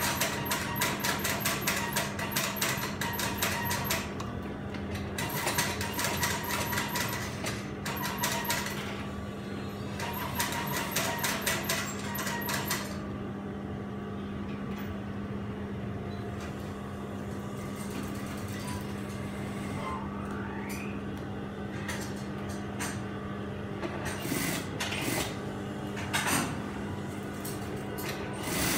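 Brother industrial single-needle lockstitch sewing machine stitching in four short runs of rapid needle strokes over the first half, with a steady motor hum throughout. Near the end, only the hum remains, with a few clicks and knocks.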